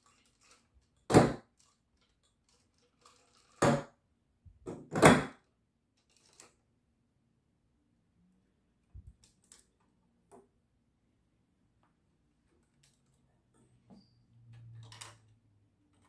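Plastic LEGO Clone Turbo Tank model knocking and rattling as it is handled and set down on a hard table: three loud knocks in the first five seconds, then faint clicks of the bricks as a hand presses on it, and a softer knock near the end.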